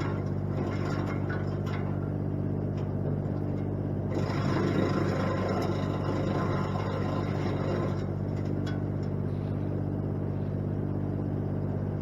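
Wood chipper engine running steadily, with a louder, rougher stretch about four seconds in as a limb is fed through and chipped, and a few short knocks.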